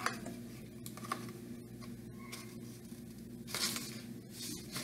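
A cardboard toilet-paper tube being cut and poked with a blade: faint clicks and scratches, with a brief scraping rustle about three and a half seconds in.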